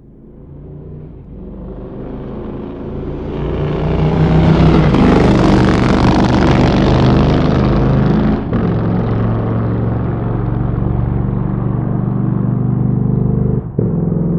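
Motorcycle engine growing louder over the first few seconds, then running steadily at a fairly even pitch, with a moment's dropout near the end.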